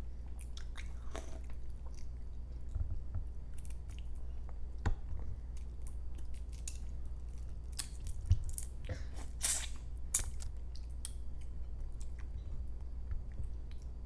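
Close-up chewing and lip-smacking of someone eating soft, wet balut (boiled duck egg embryo), in scattered small clicks and smacks, one a little louder near the middle, over a steady low hum.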